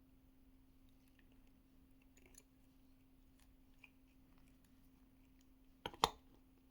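Scattered small clicks and taps of hard objects being handled, with a sharp double knock about six seconds in, over a steady faint hum.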